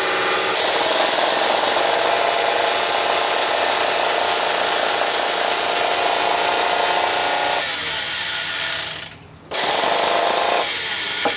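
Craftsman 1½ hp router's motor running at full speed with a steady whine on a freshly rebuilt commutator that had a popped-out segment epoxied back in; the run ends with the motor smoking and the repair failing. Its tone thins out about eight seconds in, it cuts off about a second later, then it runs again briefly near the end.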